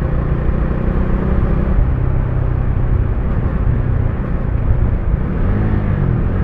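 Kawasaki Dominar 400's single-cylinder engine running while the motorcycle is ridden, with wind and road noise on the helmet mic; the engine pitch dips and rises again about five seconds in. No rattle stands out: the vibration from a loose pillion footpeg has been fixed.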